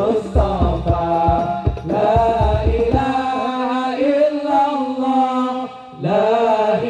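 Sholawat sung by a male lead voice over a microphone, with other men chanting along. Low beats sound under the singing for the first three seconds, then a long held note, a short break just before six seconds in, and the singing starts again.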